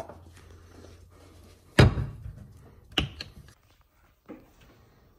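Kitchen thunks: a heavy thunk about two seconds in, a sharper knock a second later, and a faint one near the end.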